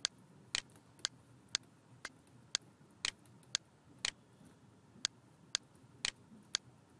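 A clock ticking steadily, with sharp ticks about two a second, a few of them doubled.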